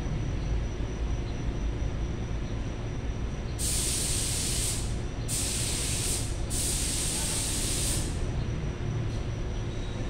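Three bursts of hissing spray from a pressurised nozzle, each about a second long with the last a little longer, over a steady low rumble.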